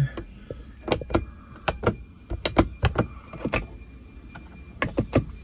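Sharp plastic clicks and knocks from a 2017 Toyota Rush's cabin fittings being handled, with the rear-view mirror moved and the overhead sunglass holder flipped open and shut. About a dozen clicks come irregularly, some in quick pairs.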